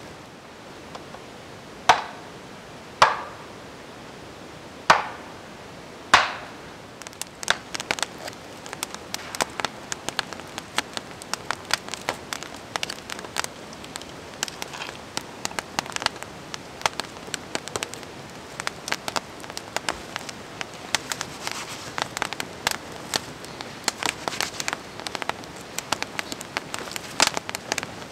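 Wood campfire crackling and popping with many small irregular snaps, after four separate sharp knocks in the first six seconds or so.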